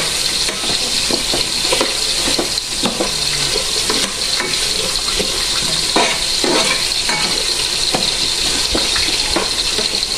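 Onions and tomatoes sautéing in hot oil with a steady sizzle, while a spoon scrapes and presses against the pan bottom in short, irregular strokes as the tomatoes are stirred and crushed.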